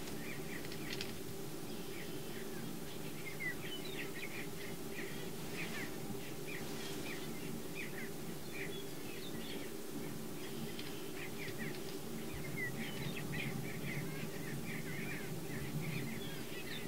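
Greater prairie chickens at a lek: a continuous low chorus of booming from displaying males, the courtship call given to attract females, with frequent short, high cackling calls from jousting males over it.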